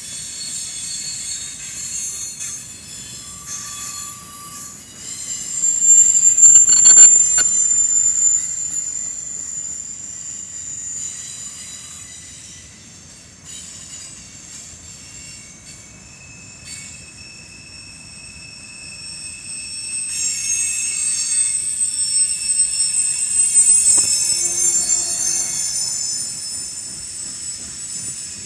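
Freight cars rolling past over a grade crossing, their steel wheels squealing on the rails in high-pitched screeches over a low rolling rumble. The squeal swells twice, loudest about a quarter of the way in and again towards the end.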